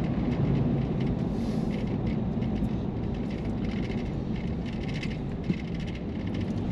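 Steady low rumble of road and engine noise from inside a moving vehicle, with one brief knock about five and a half seconds in.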